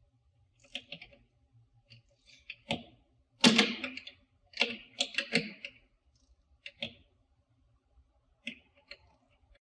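Torque wrench ratchet clicking in short, irregular bursts as a bolt is tightened, with small metal-on-metal clinks from the tools. The loudest bursts come about three and a half to five and a half seconds in.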